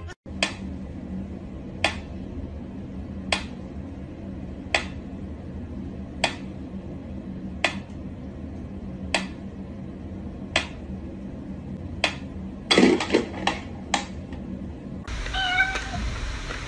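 Mechanical pendulum metronome ticking slowly, one sharp click about every second and a half, over a low steady hum. About thirteen seconds in there is a short jumble of louder clicks and knocks, and near the end the sound changes to something else, with a few held tones.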